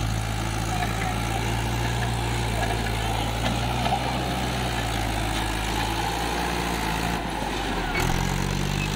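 Swaraj 843 XM tractor's three-cylinder diesel engine running steadily under load while it pulls a trailer up a sandy ramp. Its note rises a little near the end as it passes close by.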